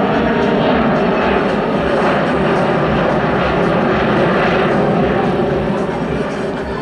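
Twin-jet Sukhoi Superjet 100's SaM146 turbofans passing overhead in a display flight: loud, steady jet noise with a low hum running through it. It fades over the last second or two as the jet moves away.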